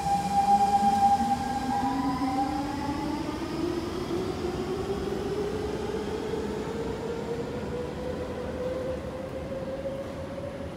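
Siemens C651 metro train pulling out along the platform, its electric traction motors whining in a tone that climbs steadily in pitch as it accelerates. A higher steady tone steps up and fades about two seconds in, and the train's sound slowly dies away as it leaves.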